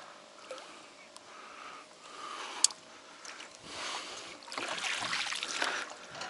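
Oars of a rowboat splashing and swishing through lake water in a few swelling strokes, louder in the second half, with one sharp click about two and a half seconds in.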